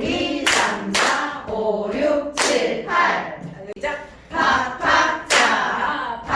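Body percussion: hand claps and slaps on the body struck every second or two, with a voice singing along between the strokes.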